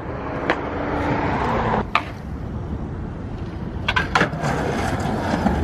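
Skateboard wheels rolling on concrete as a steady rush, with a cluster of sharp board clacks about four seconds in and a couple more near the end.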